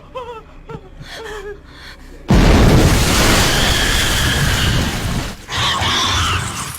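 A sudden loud burst of noise about two seconds in, lasting about three seconds, then a shorter second burst near the end.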